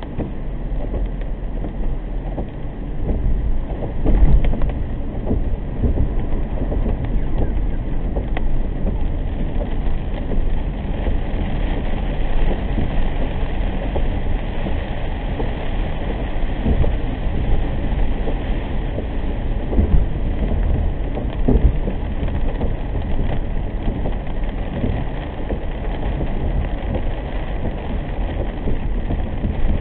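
Inside a car driving in heavy rain: a steady wash of road and tyre noise on wet pavement with rain pattering on the car body and windshield. A few louder low thumps stand out, the loudest about four seconds in.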